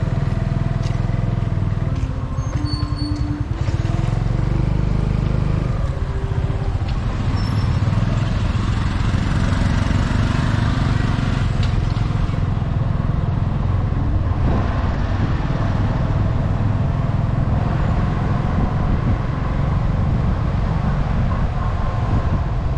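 Riding a motor scooter through town streets: the small engine running steadily under a heavy wind rumble on the microphone, with passing traffic.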